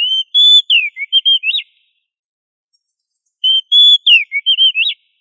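Oriental magpie-robin (kacer) singing the same short whistled phrase twice, about three and a half seconds apart. Each phrase is a quick run of clear notes with sharp down- and up-sweeps.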